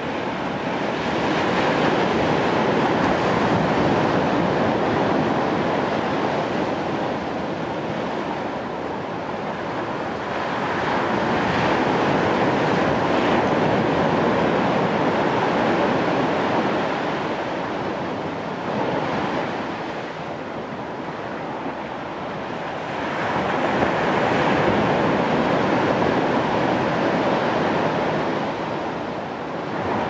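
Caribbean Sea surf breaking on the beach, a continuous wash that swells and eases in three long surges.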